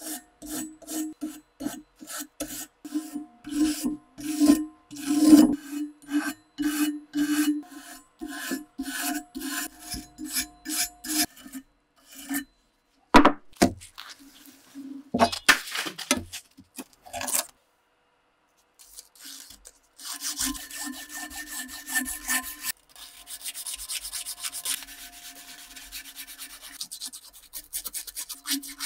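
Stiff-bristled brush scrubbing the rusty steel head of an axe clamped in a vise, in regular strokes about two to three a second over a low steady tone. Next, sandpaper crinkling and rustling as it is handled. Then fast, continuous rubbing as the axe head is sanded.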